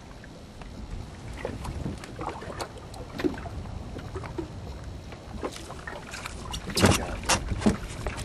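Light wind rumbling on the microphone aboard a small boat, with scattered small knocks and clicks that grow louder and come closer together near the end.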